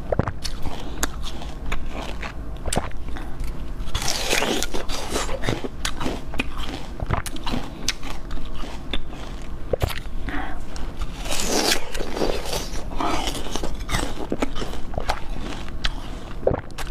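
A person eating dessert: biting and chewing, with many sharp clicks and a few longer crackling stretches, one about a quarter of the way in and others past the middle.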